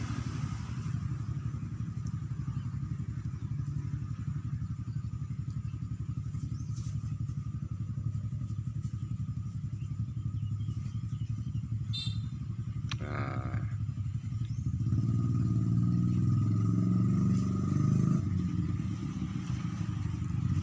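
A small engine running steadily with a low, even rumble, louder for a few seconds near the end. About two-thirds of the way through, a brief wavering higher-pitched cry sounds over it, just after a single click.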